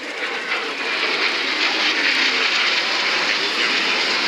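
F-16 fighter jet engine roar, swelling over the first second and then holding steady and loud.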